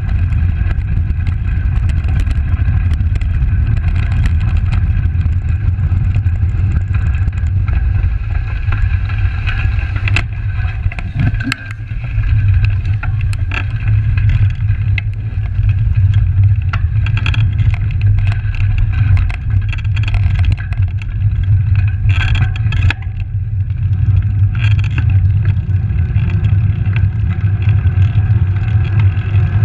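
Wind buffeting the microphone of a handlebar-mounted camera on a moving bicycle, a steady low rumble, with tyre noise and scattered clicks and knocks from bumps in the path.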